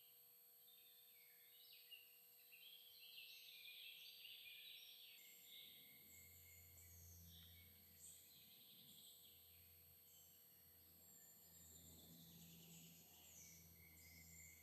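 Faint dawn chorus of several songbirds singing, with many short overlapping calls. A low steady rumble comes in about five seconds in.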